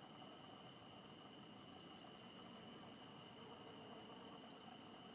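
Faint outdoor ambience: a steady, high-pitched insect drone, with a run of faint high chirps about two to three seconds in.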